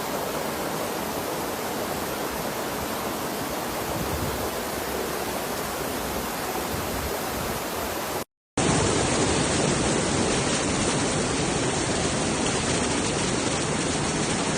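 Steady rushing noise of flowing floodwater. It breaks off for a moment about eight seconds in and resumes a little louder.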